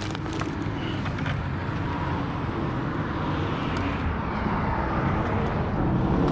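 Fire truck's diesel engine running and growing louder toward the end as it pulls in, over steady traffic noise. A few light clicks in the first second or so.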